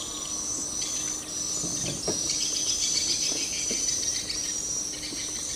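Steady high-pitched chorus of insects chirring in the surrounding vegetation, with a faint low steady hum underneath.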